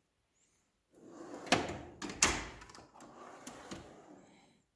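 Steel tool box drawer rolling on its ball-bearing slides, with two sharp clacks about a second and a half in, then a softer rolling slide.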